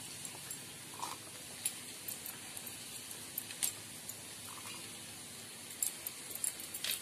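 Sliced onion pieces being dropped by hand into a stainless-steel mixer-grinder jar: scattered light clicks and taps, a few bunched near the end, over a faint steady hiss.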